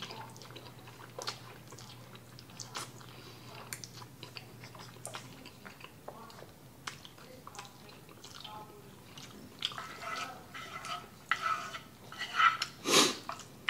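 Close-up slurping and chewing of black bean sauce noodles, with wet mouth clicks and smacks. They grow busier near the end, with one loud burst just before it.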